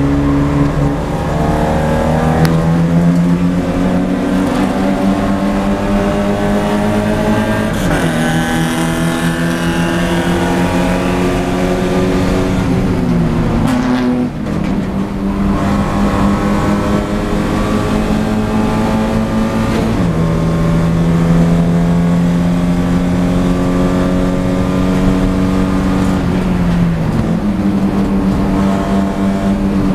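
Porsche 944 Spec race car's four-cylinder engine under hard acceleration, heard from inside the cabin: the pitch climbs steadily in each gear and drops abruptly at each gear change, several times, with a short rise near the end as it shifts down for a corner.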